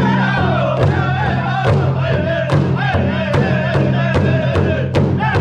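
Native American powwow drum group singing in high voices over a large drum struck in a steady beat, a little more than one stroke a second; the sung line falls in pitch near the start.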